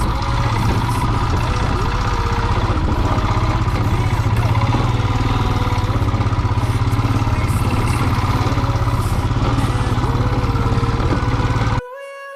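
Royal Enfield single-cylinder motorcycle engine running steadily at low revs with a fast, even thumping pulse. It cuts off abruptly shortly before the end.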